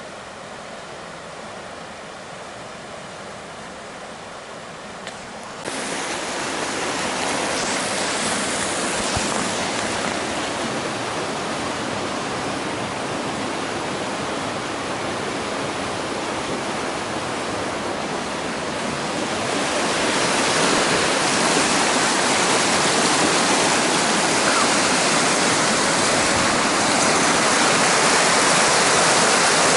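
Water pouring through a dam's gate and churning in the river below: a steady rushing that jumps louder about six seconds in and again about two-thirds of the way through.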